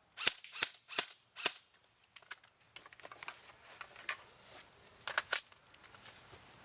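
Airsoft guns firing single shots: four sharp cracks in the first second and a half, scattered fainter shots further off, then two more sharp cracks in quick succession about five seconds in.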